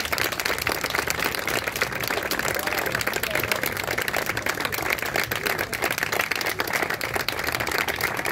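Audience applauding: dense, steady clapping with voices over it.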